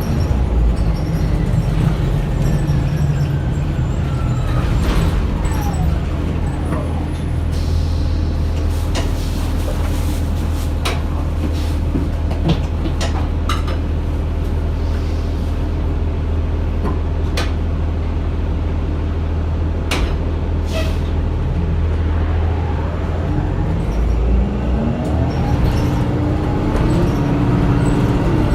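2009 Orion VII Next Generation hybrid bus (Cummins ISB diesel with BAE Systems HybriDrive) heard on board: an electric drive whine falls in pitch as the bus slows, then a steady low hum with scattered sharp clicks while it stands, and near the end the whine rises again as the bus pulls away.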